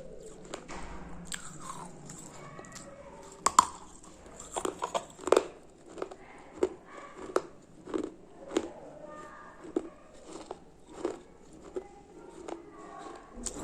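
Close-up crunching and chewing of something hard and crunchy. A loud bite comes about three and a half seconds in, followed by steady crunching chews at roughly one every two-thirds of a second.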